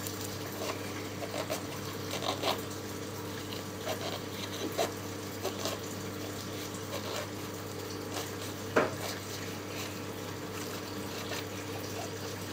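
Kitchen knife cutting around the crown of a pomegranate, the blade making a scatter of small, irregular crunching clicks as it works through the tough rind, with one sharper click about nine seconds in. A steady low hum runs underneath.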